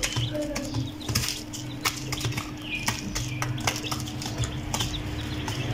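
Hen and chicks pecking grain off the cardboard floor of a box: irregular sharp taps a few times a second, with a few faint chick peeps and a steady low hum underneath.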